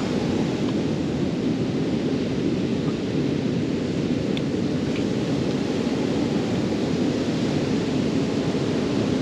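Steady low roar of wind buffeting the microphone, mixed with the wash of sea surf.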